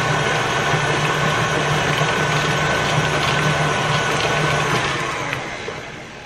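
KitchenAid stand mixer motor running steadily while creaming butter, a steady hum with a higher whine over it. It is switched off about five seconds in and winds down.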